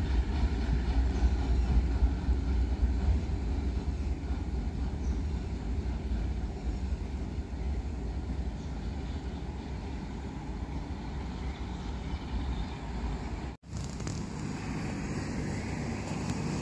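Low rumble of a train at a railway station, slowly fading, with a brief cut in the sound near the end.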